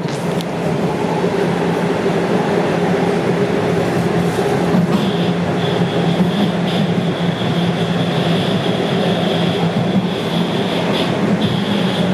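Toronto TTC Line 1 subway train running at speed through the tunnel, heard from inside the passenger car: a steady rumble and rush of wheels on rail with a low hum, getting louder right at the start. A high thin whine comes in about five seconds in and breaks off now and then.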